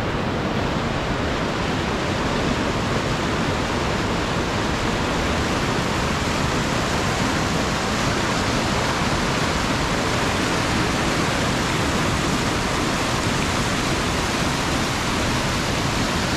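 Fast-flowing mountain river water rushing: a loud, steady, unbroken wash of noise that stays level throughout.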